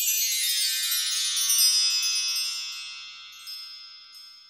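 A shimmering chime sound effect: a cascade of many high bell-like tones that sweeps downward over the first second or so, then rings on and slowly fades away, with a few small sparkles near the end.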